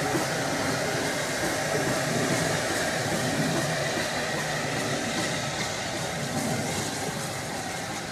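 Southern Railway Q class 0-6-0 steam locomotive No. 30541 moving slowly along the track, a steady, even sound with no distinct exhaust beats.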